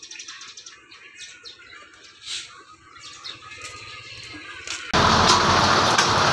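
Faint, scattered bird chirps over a quiet background. About five seconds in, an abrupt switch to loud, steady roadworks noise from concrete road paving.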